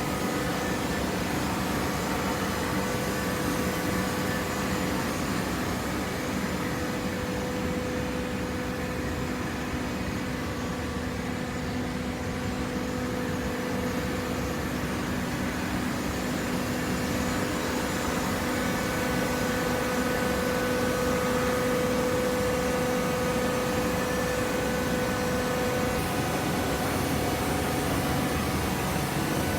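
Industrial hydraulic paper baler running: a steady mechanical hum over noise, with a whining tone that grows stronger twice and then eases.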